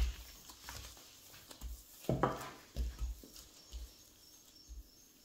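Rolling pin working a soft cocoa dough on a work surface: a series of soft, dull thumps and knocks at irregular intervals, about one a second.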